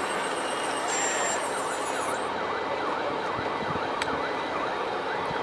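A siren in a fast yelp, its pitch sweeping down and back up about three times a second, over a steady mechanical din. A faint high whine stops about two seconds in.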